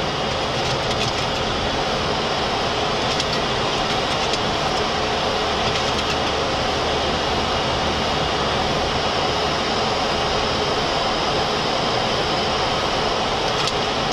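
Steady rushing flight-deck noise of a Boeing 737-400 in the climb: air rushing past the windscreen and the hiss of the air conditioning, even and unbroken.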